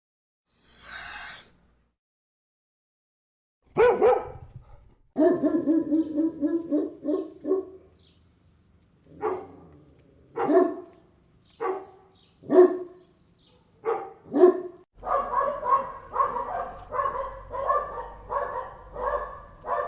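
Dog barking. After a short sound about a second in and a pause, it barks once, then in a quick run, then in single barks a second or so apart, and from about 15 s in a fast, steady series of barks.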